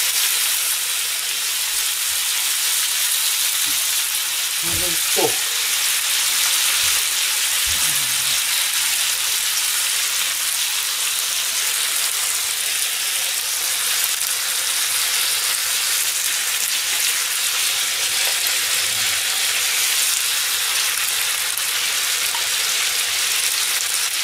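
Chopped vegetables, minced meat and freshly added tomato frying in a pan with a steady sizzle. A few short knocks come about five and eight seconds in.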